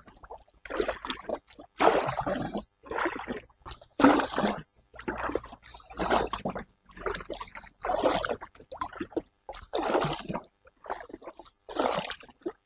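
Double-bladed kayak paddle dipping and pulling through canal water on alternate sides, each stroke a short splash and trickle of drips, about one stroke a second.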